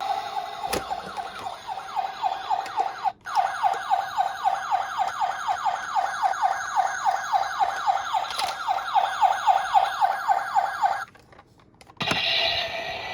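A toy emergency-vehicle minicar's electronic siren sounding a fast, repeating wail of several sweeps a second, breaking off briefly about three seconds in and stopping about eleven seconds in. A different, rougher sound starts about a second later.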